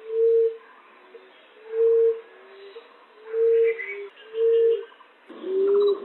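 Common emerald dove (punai tanah) cooing: low, soft single coos repeated about once a second, some followed by a fainter lower note, played as a hunter's lure call.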